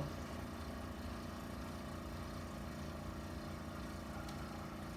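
Steady low background hum of room noise with no distinct event, and a faint click about four seconds in.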